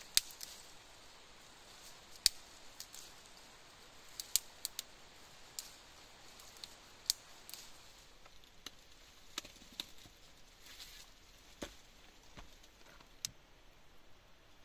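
Scattered sharp clicks and snaps at irregular intervals, about a dozen in all, over a faint steady hiss.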